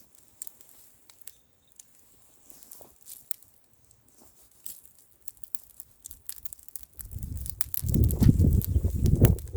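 Bonfire crackling with scattered sharp pops. About seven seconds in, a loud low rumble of wind buffeting the microphone takes over.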